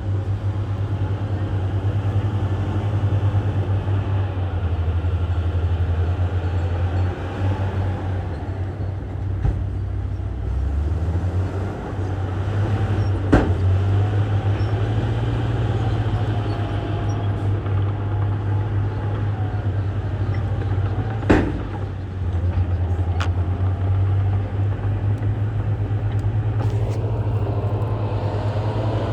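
Heavy diesel engine of a Komatsu bulldozer working, a steady low drone that rises and falls with load, with wavering higher squeaks over it. Two sharp metallic clanks, one near the middle and one about two-thirds of the way through.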